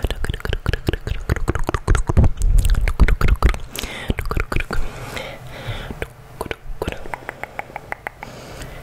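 Wet ASMR mouth sounds made right at a microphone: rapid clicks and smacks, dense at first with some low puffs against the mic, then thinning to sparser, evenly spaced clicks.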